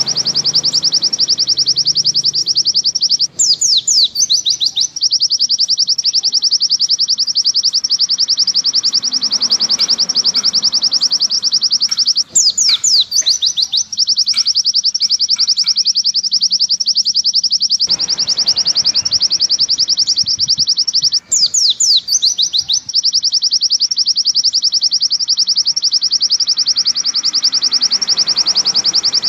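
White-eye (pleci) song: a long, unbroken run of fast, high, clear notes, broken about every nine seconds by a short pause with a few falling sweeps, the same phrase repeating.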